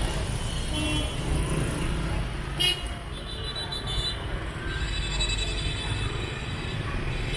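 City street traffic: a steady low rumble of passing vehicles, with a short, high vehicle horn toot about two and a half seconds in.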